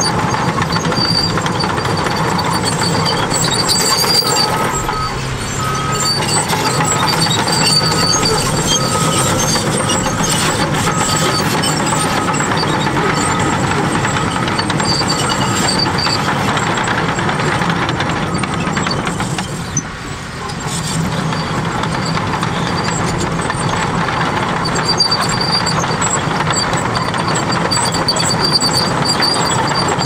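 Cat D6T crawler bulldozer working: its diesel engine running steadily under load, with the clank and squeal of its steel tracks as the blade pushes soil. A reversing alarm beeps steadily from a few seconds in until about halfway through, and the machine sound briefly drops a little later.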